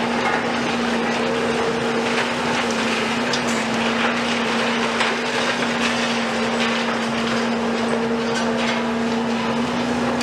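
Cat 374F UHD long-reach demolition excavator and Volvo EC250 excavator working, their diesel engines and hydraulics giving a steady low hum. Scattered clatter of broken concrete and rubble runs over it.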